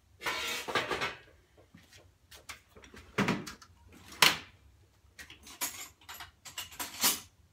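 A tool drawer sliding, then scattered knocks and metal clinks as wrenches and a socket are picked out, the sharpest clack about four seconds in.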